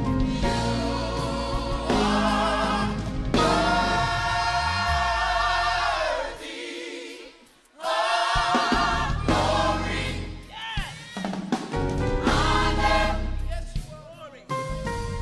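Gospel choir singing with low instrumental backing. The voices hold long, wavering notes, break off briefly about halfway through, then come back in.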